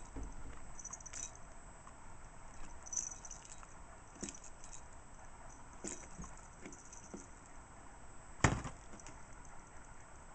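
Bell inside a plastic jingle-ball cat toy jingling now and then as kittens bat at it, with soft taps against the cat tree and one sharp knock about eight seconds in.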